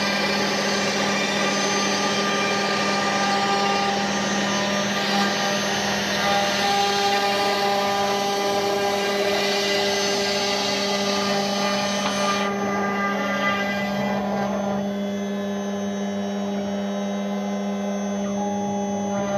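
Woodworking CNC router's spindle running at a steady high pitch while it cuts wood, with a hissing cutting noise over the whine; the hiss drops off suddenly about twelve seconds in.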